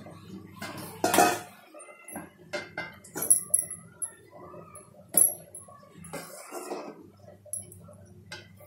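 A steel ladle and steel bowl clinking and knocking against a large aluminium pan while a curry is stirred. There are several sharp metallic knocks, the loudest about a second in, some with a brief high ring.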